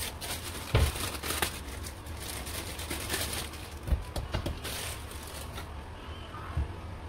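Hands pressing and patting a ball of pastry dough flat on a floured metal baking tray: soft handling sounds with dull knocks about a second in and again about four seconds in, over a steady low hum.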